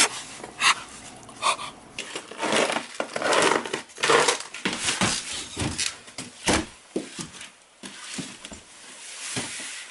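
A person fumbling to light a fire: irregular rustling and crumpling with small sharp clicks, and short breathy puffs in between.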